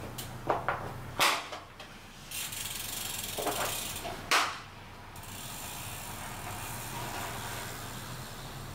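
A road bike being mounted and ridden off: sharp clicks of cycling-shoe cleats snapping into clipless pedals, two of them loud, with freewheel and drivetrain ticking. A steady hiss runs behind from about two seconds in.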